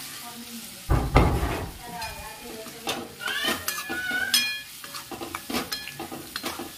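Boiled chickpeas and their cooking water tipped into hot onion-tomato masala in a steel kadai: a loud splash and sizzle about a second in. Then a metal spoon stirring the gravy, scraping and clinking against the steel pan.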